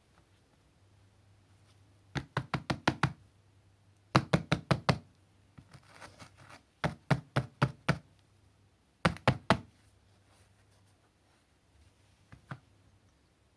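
A plastic part of a GeeMo E4 cordless vacuum, most likely its dust box or filter, knocked against a hard surface in four quick runs of sharp knocks, about seven a second, followed by one weaker knock near the end. This is typical of tapping caked dust loose from the part while emptying it.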